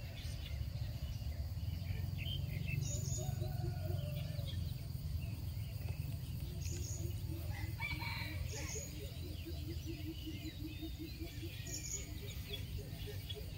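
Chickens: a rooster crows once about three seconds in, then a run of short regular clucks at about three a second, with a few faint bird chirps over a low steady rumble.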